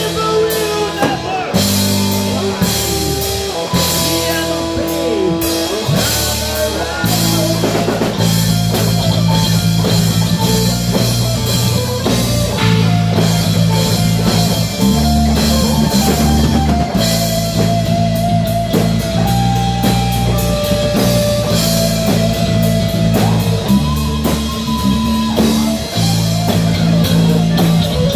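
Heavy metal band playing live: electric guitar, bass guitar and a drum kit keep up a fast, dense rhythm under a held melodic lead line that moves in steps.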